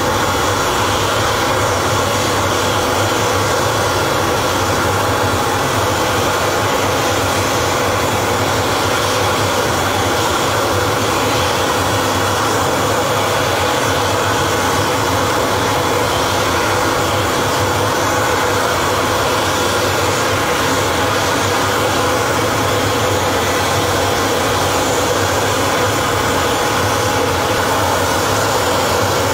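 Aircraft engine running steadily at a loud, constant level, a dense even roar with a faint high whine and no change throughout.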